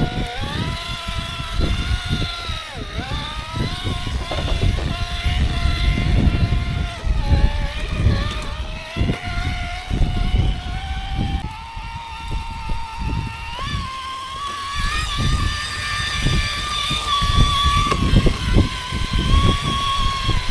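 Electric RC rock crawler drivetrains whining as they crawl over rough ground, the motor and gear whine dipping and rising with the throttle, with irregular low rumbles and knocks underneath.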